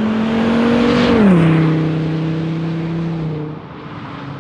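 Straight-piped exhaust of a P2 Volvo XC70's five-cylinder 2.5T, muffler deleted with the resonator, stock downpipe and cat kept, driving past. The note climbs slightly as it approaches, drops sharply in pitch as it goes by about a second in, then fades away.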